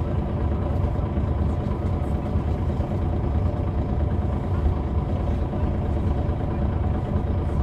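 MAN D2866LUH24 six-cylinder diesel engine of a 2005 MAN A20 city bus running at a steady, unchanging pitch, heard from inside the bus.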